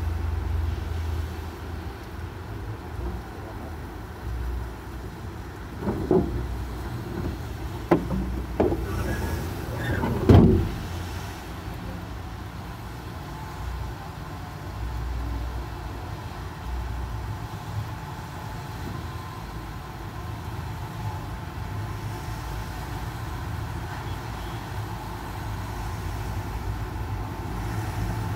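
Air-cooled flat-four engine of a Volkswagen Beetle (Fusca) idling with a steady low rumble, heard from inside the cabin. A few knocks and clunks come between about six and eleven seconds in, the loudest near ten seconds.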